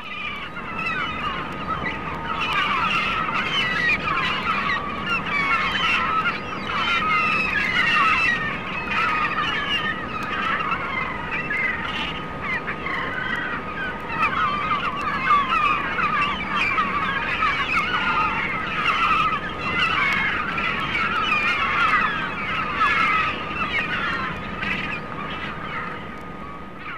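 Flock of seagulls calling continuously, many overlapping squawks at once, over a faint steady tone. Fades in at the start and fades out near the end.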